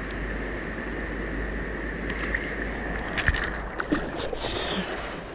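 Steady rushing of river water, with a hooked ayu splashing at the surface a few sharp times about three to four seconds in.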